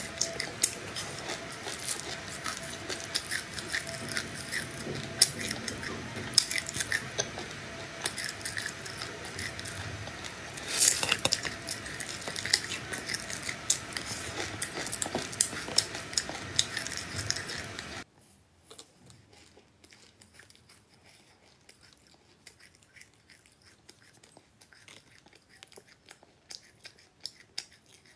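Close-up chewing of crunchy seeds: dense crisp clicks and crackles with a faint steady hum. About eighteen seconds in, it drops suddenly to much fainter clicking.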